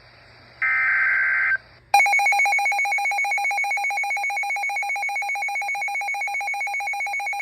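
Emergency Alert System broadcast: the last burst of the digital SAME header, a harsh modem-like screech, ends about a second and a half in. About two seconds in, the alert's attention signal starts abruptly, a loud, steady two-tone tone that warbles rapidly like a telephone ringing.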